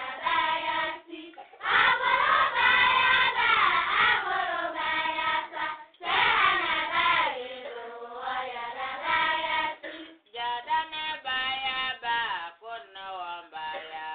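Islamic devotional chant sung by a group of voices in phrases of a few seconds with short breaks between them, fullest and loudest from about two seconds in and again around six seconds.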